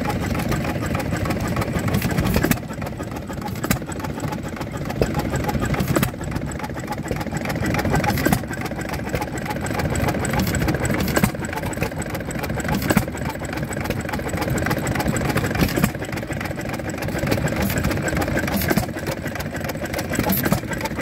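Bamford single-cylinder stationary engine running, a steady mechanical clatter broken by a sharp bang every one to three seconds.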